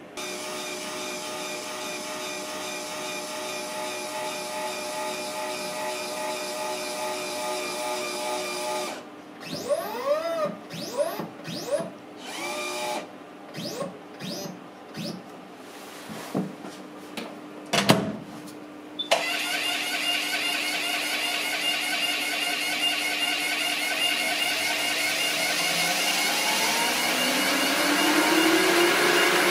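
Laboratory sample-preparation machinery running. A steady machine hum with several fixed pitches gives way to a run of short whirs that rise and fall in pitch, with a sharp knock about eighteen seconds in. Then a precision abrasive cut-off wheel runs steadily with coolant spraying inside its closed chamber, and a rising whine comes in near the end.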